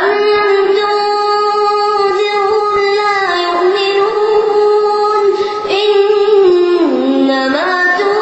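A boy reciting the Quran in a melodic chant, one voice holding long drawn-out notes that slide down and back up near the end.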